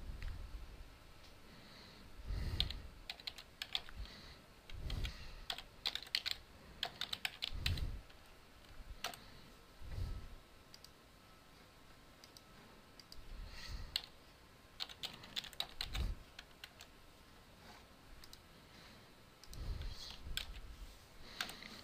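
Computer keyboard being typed on in short bursts of quick key clicks with pauses between them.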